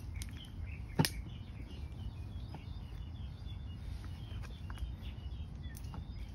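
Outdoor ambience: a steady low rumble with faint bird chirps, one sharp knock about a second in, and a few lighter clicks.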